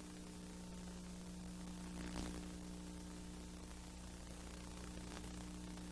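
Steady hiss and electrical hum of an old videotape transfer with no programme sound, and a faint click about two seconds in.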